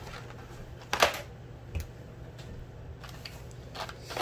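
Plastic blister packs of carded Hot Wheels cars clicking and rustling as they are handled and pulled from a cardboard case, with one sharp click about a second in and a few lighter ones later, over a low steady hum.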